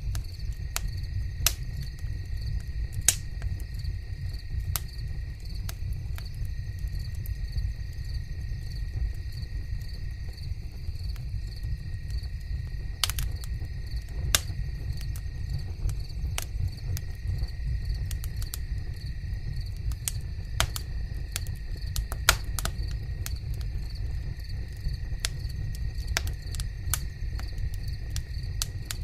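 Continuous high, pulsing insect trilling with a steady thinner line beneath it and scattered sharp clicks.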